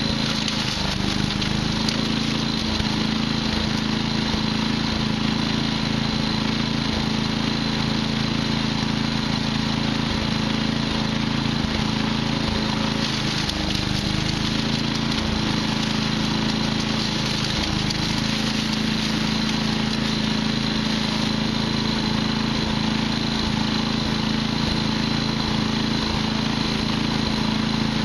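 Patriot wood chipper's engine running steadily with an even hum.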